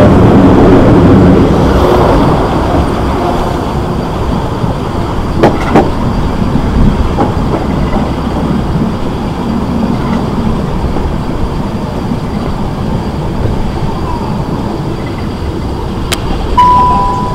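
Class 465 Networker electric multiple unit running, loudest with pitched motor tones in the first two seconds, then settling to a steadier rumble. Two sharp clicks come about five and a half seconds in, and a short high steady tone sounds near the end.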